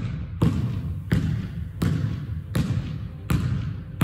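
Basketball dribbled on a hardwood gym floor, a steady bounce about every three-quarters of a second, each bounce echoing in the large hall.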